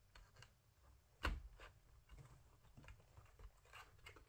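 Near silence broken by a few faint clicks and taps of small tools and plastic being handled, the sharpest about a second in.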